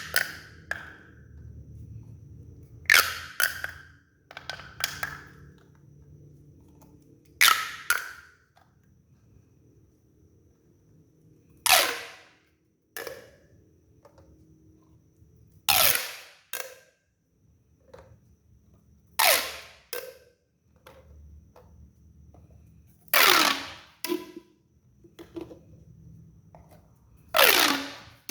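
Plastic pop tube toy being stretched and squashed, its ribbed segments snapping open or shut in short crunchy popping bursts. The bursts come about every four seconds, usually a loud one followed by a smaller one, each falling in pitch as it dies away.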